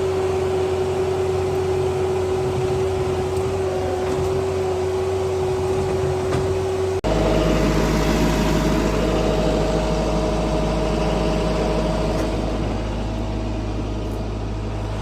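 Skid steer engine running steadily at working revs with a steady high tone over it, while it pulls an overturned tractor upright by a chain. About seven seconds in the sound cuts abruptly to a louder engine sound with a higher steady tone.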